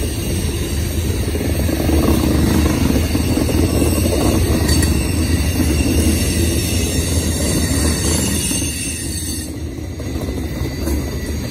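Freight train cars, covered hoppers and a boxcar, rolling past on the rails: a steady, loud rumble of steel wheels on track.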